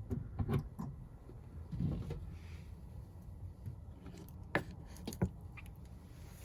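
Scattered knocks and clicks of chicken being loaded into a Masterbuilt electric smoker, with two sharp clicks about four and a half and five seconds in.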